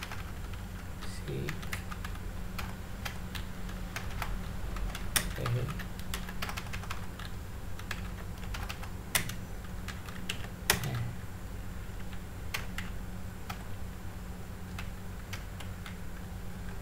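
Computer keyboard being typed on: irregular key clicks at an uneven pace, with a few louder keystrokes about five, nine and eleven seconds in, over a steady low electrical hum.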